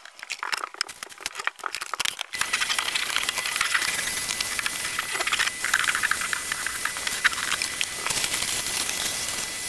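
Henry cylinder vacuum cleaner switching on about two seconds in and running steadily with a high whine as it hoovers carpet, stopping at the very end. A few clicks and knocks come before it starts.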